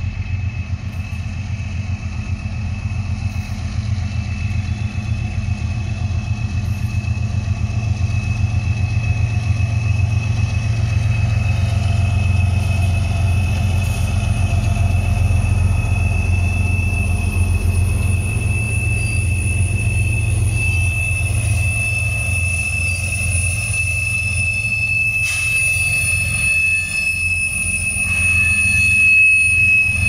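Diesel-electric freight locomotive engines rumbling with a fast low throb, growing louder over the first half and then holding, with a steady high whine running through it.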